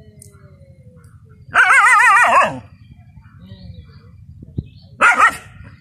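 Dog barking at a water monitor: one long bark with a wavering pitch about one and a half seconds in, then a shorter double bark near the end.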